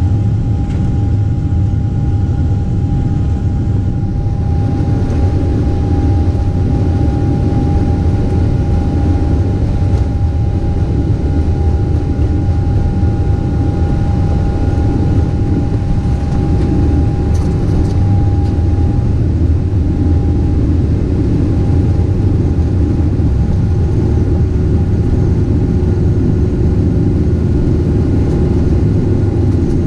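Cabin noise of a Boeing 777-300 taxiing: a steady deep rumble of the engines and rolling gear, with a thin steady whine that fades about two-thirds of the way through.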